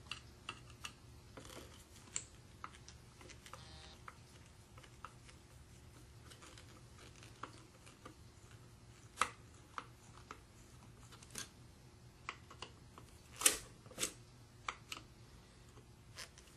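A hand screwdriver working screws out of the bearing plate in an electric motor's metal end bell, giving faint scattered clicks and light metal taps. There are a few sharper clinks in the second half, over a low steady hum.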